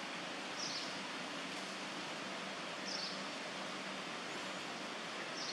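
Steady outdoor background hiss, with a short high chirp about every two and a half seconds, three in all.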